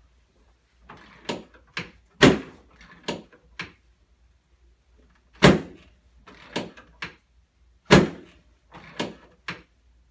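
Chiropractic adjustment of the spine done without twisting: about a dozen sharp knocks and thuds starting about a second in. Three are much louder than the rest, spaced a couple of seconds apart.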